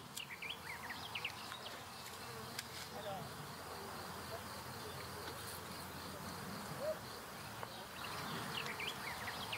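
Faint vegetable-garden ambience: a low steady buzz, with small birds chirping briefly near the start and again near the end.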